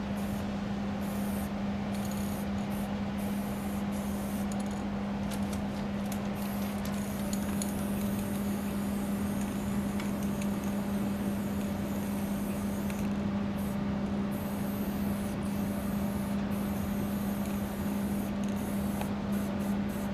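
Aerosol spray paint can hissing in on-and-off bursts as paint is laid onto a freight car's steel side, over a steady low hum.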